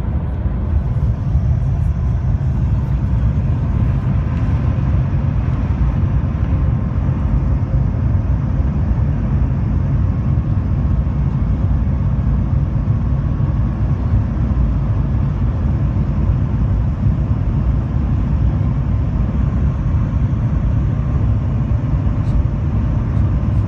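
Shanghai maglev train running at high speed, heard inside the passenger cabin: a loud, steady low rumble of air and car body noise with a faint steady whine above it.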